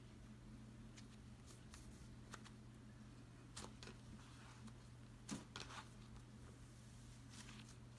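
Faint soft crackles and clicks of a cloud slime being stretched and pressed by hand, over a low steady hum. The loudest crackle comes a little past the middle.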